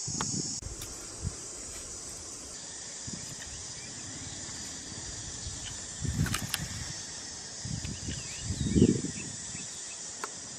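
Steady high-pitched insect chorus, with a couple of short, low rustling thumps about six and nine seconds in, the second the loudest.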